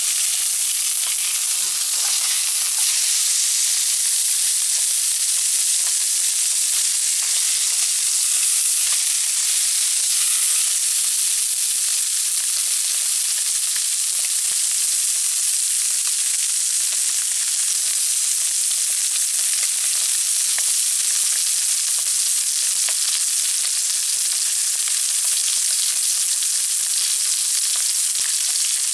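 Pork belly frying in a pan: a steady sizzle with fine crackling.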